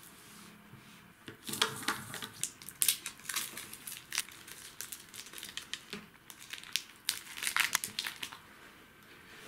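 Snack packaging crinkling as it is handled, in irregular bursts of crackles.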